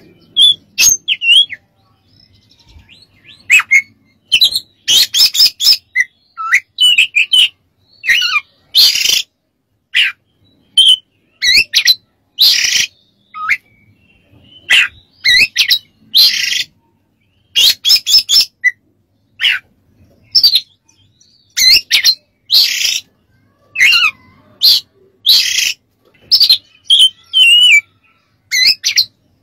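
Oriental magpie-robin (kacer) singing vigorously: a continuous string of short phrases, each about half a second, mixing clear whistled slides with harsh, rasping notes, with brief pauses between phrases.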